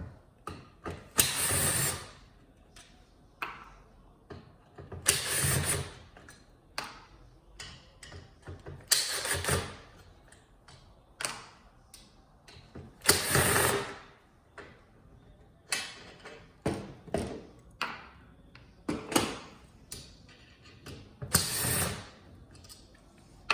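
Screws being worked out of a TV's metal frame with a screwdriver: about six loud bursts of about a second each, spaced a few seconds apart, with small clicks and taps of metal parts between them.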